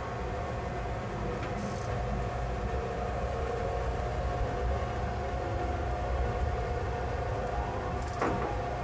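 Hokutosei sleeper train car heard from inside a private compartment: a steady low rumble with a steady hum over it. There is a short knock near the end.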